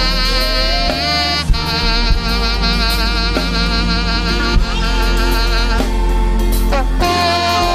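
Instrumental music: a sustained, wavering lead melody over steady bass and drums.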